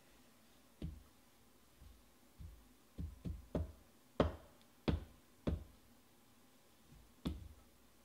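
Hard plastic graded-card slab being banged about in the hands: about ten dull knocks at uneven intervals, the loudest in the middle. The card has shifted inside the case, and the knocking is meant to settle it back into place.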